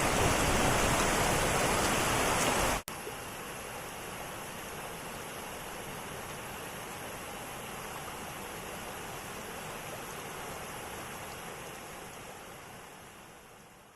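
Waterfall rushing in a steady roar. About three seconds in it cuts abruptly to a quieter, steady rushing hiss that fades out near the end.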